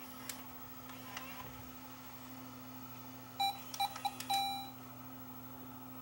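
Sony DCR-TRV340 Digital 8 camcorder's beeper giving a quick string of short beeps ending in a longer one, about three and a half seconds in, after a couple of faint clicks. It is the camcorder's alert as its power cuts out, which the owner puts down to a faulty power switch.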